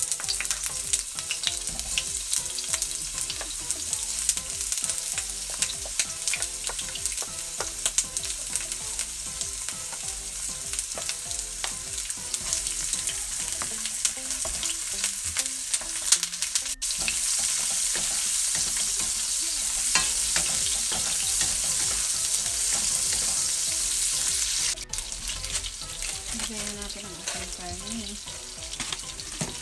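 Oil sizzling and frying in a nonstick wok while a wooden spatula stirs, with frequent small scrapes and taps of the spatula against the pan. The sizzle grows steadier and louder for several seconds in the middle, then drops back.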